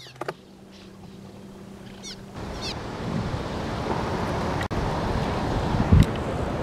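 A steady rushing noise, like wind or moving water, sets in about two and a half seconds in. Before it there is a quieter stretch with a low hum and a few short high chirps.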